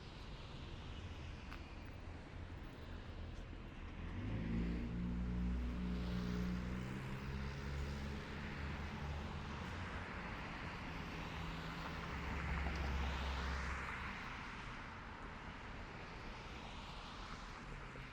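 City street traffic: motor vehicles driving past with a low engine hum and tyre hiss, swelling about four seconds in and easing off after about fourteen seconds.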